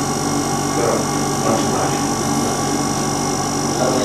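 Air abrasive unit running: a steady hiss of compressed air and abrasive powder blasting away limestone matrix, over a constant machine hum with steady tones.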